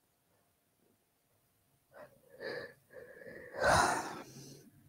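A person's breathing: after a quiet start, a few short breathy sounds about two seconds in, then a heavy exhale like a sigh.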